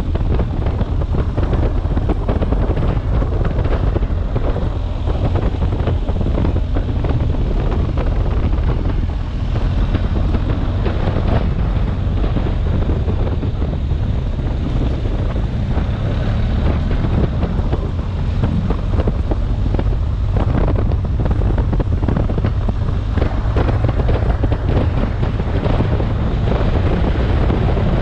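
Wind buffeting the action camera's microphone, with a BMW R 1250 GS motorcycle's boxer-twin engine running steadily beneath it and its tyres crackling over loose gravel.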